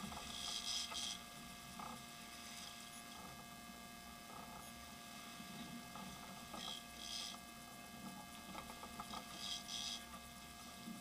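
Muffled steady hum of a sportfishing boat's engine, with three short bursts of high clicking or rattling: near the start, about two-thirds of the way through and shortly before the end.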